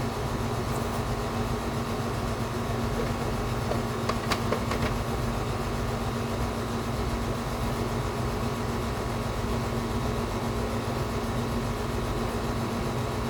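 Steady machine hum running throughout, with a few short clicks about four to five seconds in.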